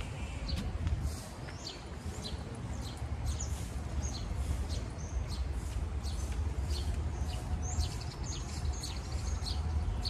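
Birds chirping: many short, high calls, some sliding up or down in pitch, over a steady low rumble.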